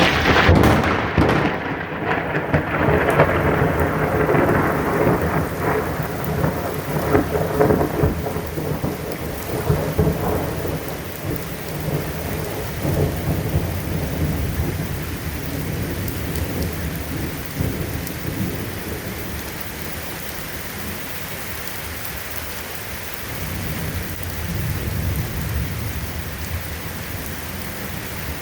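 A nearby lightning strike's thunderclap: a sudden sharp crack, then rolling rumble that fades over about ten seconds. Steady rain falls throughout, and a softer rumble of thunder swells again near the end.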